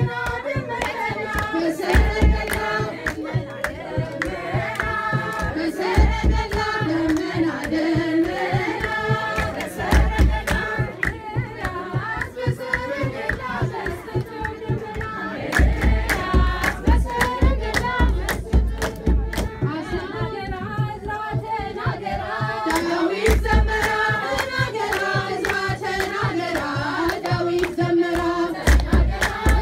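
A group of women singing an Ethiopian Orthodox mothers' hymn (mezmur) together, with hand clapping and a kebero drum. The drum strokes come in short runs every few seconds.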